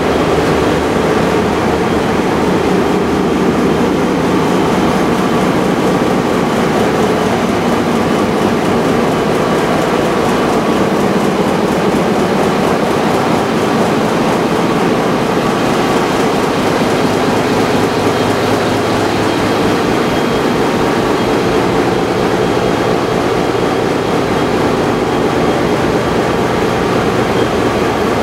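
Loud, steady engine-room din of a Great Lakes freighter: the ship's large diesel main engine and surrounding machinery running, a continuous deep hum with a constant mechanical clatter.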